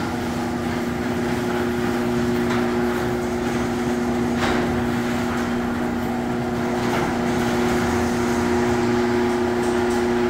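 Electric garage door opener running as it lowers a sectional garage door: a steady motor hum with two held tones and a few faint clicks.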